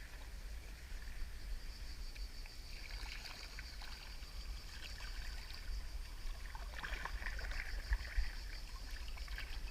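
Kayak paddle strokes in the sea, water dripping and trickling off the blades, with a steady low rumble under it.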